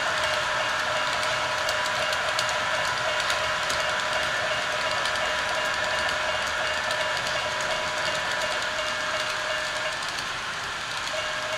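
HO-scale model double-stack container train rolling past: a steady whir with a few steady tones, and light irregular clicking of wheels over the track.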